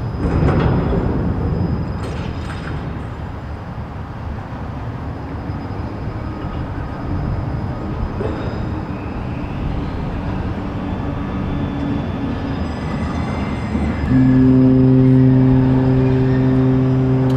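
A steady rumbling noise, then a loud sustained low tone with overtones that starts about 14 seconds in and holds for about three seconds.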